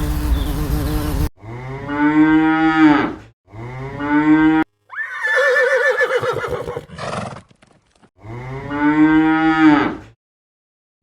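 Cow mooing: several separate drawn-out calls, one after another, with a higher, wavering call in the middle. A loud, rough, noisy sound cuts off about a second in.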